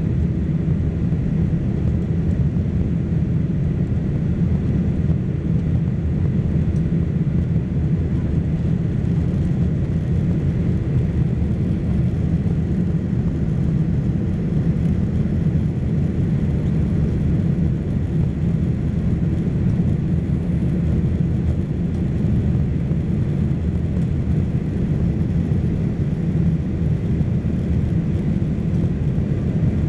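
Steady cabin rumble of a Boeing 747-400 in flight: the engines and rushing air, heard from a window seat behind the wing, low and even throughout.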